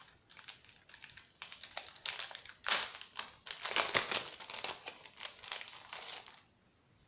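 Clear plastic packaging crinkling and crackling as it is handled, with irregular crackles that stop suddenly about six seconds in.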